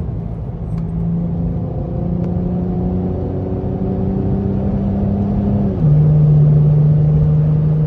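A Lexus with a muffler-less axle-back exhaust accelerating through the gears. The engine note climbs slowly, drops sharply with an upshift about six seconds in and then runs louder, and drops again with another upshift at the very end.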